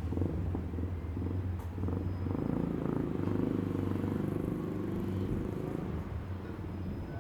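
A small engine running with a steady low putter. It swells about two to three seconds in and eases slightly near the end.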